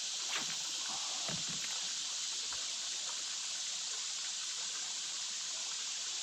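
Faint water trickling around a kayak over a steady high hiss of outdoor ambience, with a few light knocks in the first second and a half.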